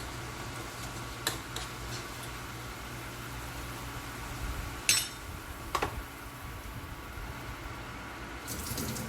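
Cookware and utensils clinking a few times over a steady low hum, the loudest clink about five seconds in, with a short hiss near the end.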